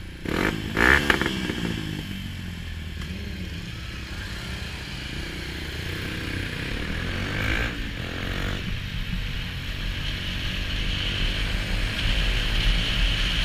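Motorcycle engines pulling away from traffic lights, with a sharp burst of revs about a second in. Steady engine sound follows, and wind noise builds as speed rises.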